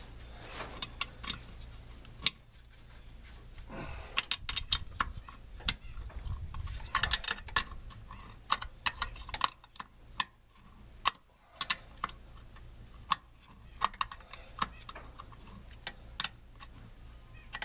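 Hand tools on metal: irregular sharp clicks and ticks of a wrench working the bolts and line fittings of a brake master cylinder, with a faint low steady hum beneath.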